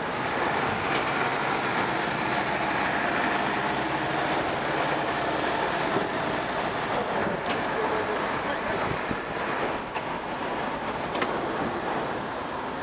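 Steady running noise of vehicle engines idling, with a few faint sharp clicks in the latter part.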